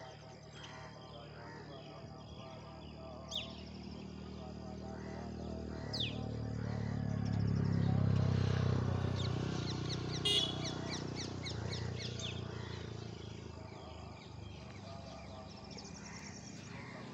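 House sparrows giving short, sharp chirps, single notes about three and six seconds in and a quick run of chirps around ten seconds in. Under them a low engine rumble swells to its loudest about eight seconds in and then fades.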